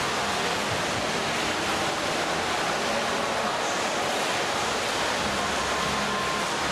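Indoor swimming pool ambience: a steady wash of splashing water from swimmers doing freestyle laps, with no distinct single strokes standing out.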